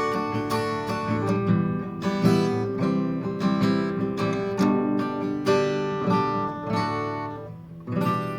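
Gibson LG-1 small-bodied flat-top acoustic guitar being strummed, with chords ringing out one after another. The playing eases briefly near the end before a fresh, strong strum.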